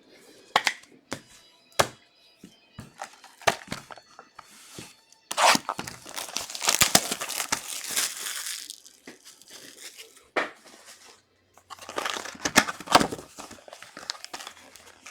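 Trading-card pack wrappers being torn open and crinkled, in two longer spells about five and twelve seconds in, with scattered short taps between.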